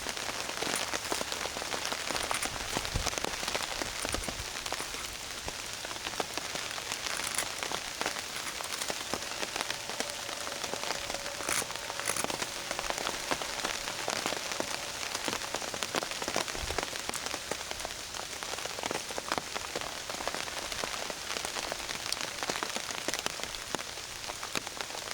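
Rain falling steadily on a tarp overhead: a dense, even spread of small drop ticks.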